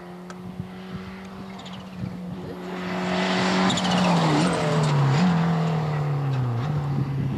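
Ford Escort rally car's engine at full throttle, growing louder from about two seconds in as it comes up and passes close by. Its note slides down and jumps back up several times with gear changes through the bend.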